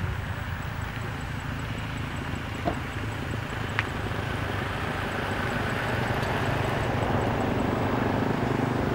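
A motor vehicle's engine running steadily with a low hum, growing gradually louder, with two short clicks near the middle.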